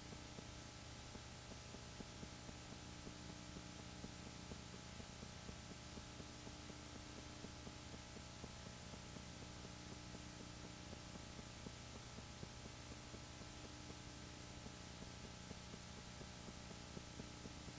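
Faint steady low hum of several tones, with a fast faint ticking running under it.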